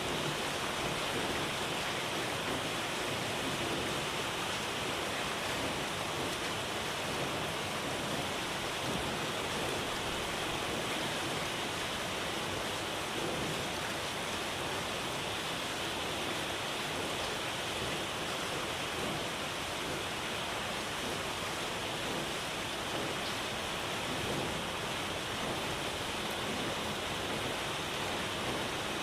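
Heavy rain falling on the sea, a steady, even hiss.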